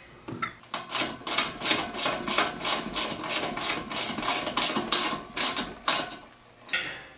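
Socket ratchet clicking in quick back-and-forth strokes, about four a second, as a bolt is tightened; the strokes start about a second in and stop near the six-second mark.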